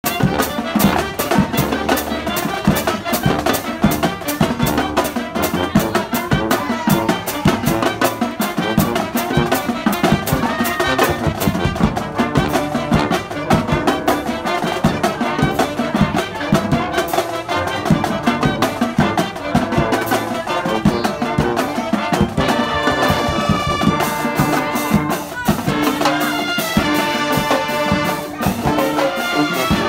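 High school marching band playing: trumpets, trombones, sousaphones and saxophones over a steady drumline beat of snare, tenor and bass drums. In the last several seconds the horns hold long chords between the drum hits.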